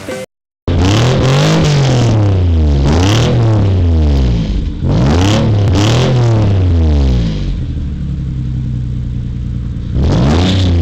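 Nissan 300ZX V6 with an induction kit and twin straight-through stainless exhaust pipes, revved in several quick blips that rise and fall. It settles to a steady idle about seven seconds in, then is blipped once more near the end.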